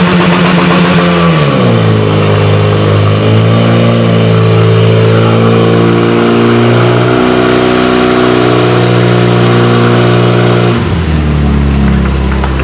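Portable fire pump's engine running hard while it pumps water to the hoses: its note is high at first, drops and settles about a second and a half in, then holds steady. Near the end it is throttled back to a lower, slower note.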